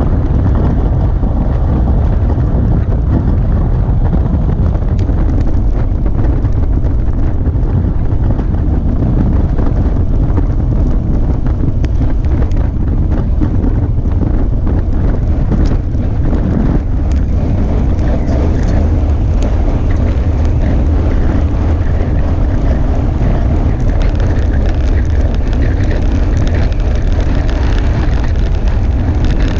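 Wind buffeting the microphone of a bike-mounted action camera as a road bike rides at speed: a loud, steady low rumble, with a few faint clicks around the middle.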